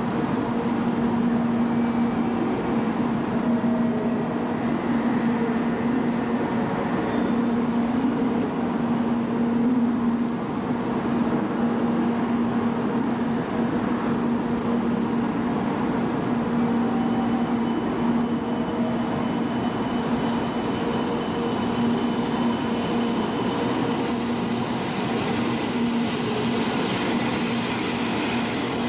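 700 Series 'Rail Star' shinkansen humming steadily while it stands at the platform, then pulling out in the second half, with the running noise of the train building as it moves off.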